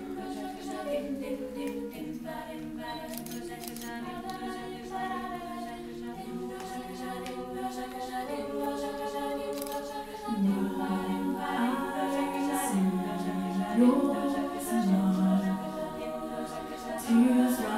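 All-female a cappella group singing sustained chords in close harmony. About ten seconds in, the singing grows louder and a strong lower line joins.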